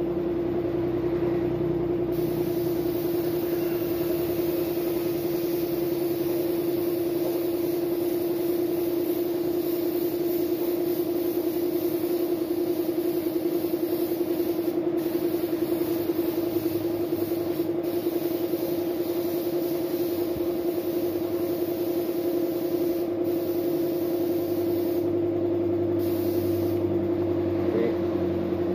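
Air compressor motor running with a steady hum while a compressed-air paint spray gun hisses in long passes, cutting out briefly a few times as the trigger is released; a further coat of paint is being sprayed on to build thickness.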